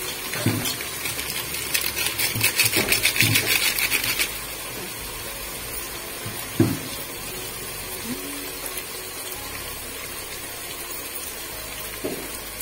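A paper masala packet being shaken and tapped empty over a cooking pot: a fast, even crinkling rattle for about three and a half seconds. A single sharp knock comes about six and a half seconds in.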